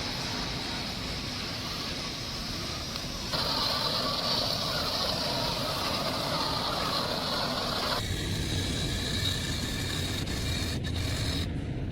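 Scale 8x8 RC military truck running, its electric motor and gearbox whining steadily. The sound changes abruptly twice, at about 3 seconds and 8 seconds in.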